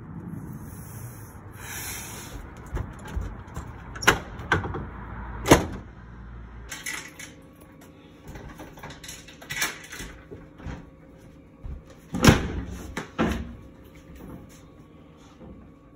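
A door being handled and shut: a series of sharp bangs, bumps and latch clicks. The loudest bangs come about four, five and a half, and twelve seconds in, with shuffling and rustling between.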